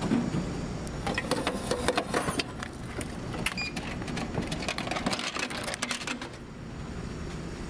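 Steady low drone of a ferry's engines, with a quick run of clicks and rattles from about a second in until about six seconds in.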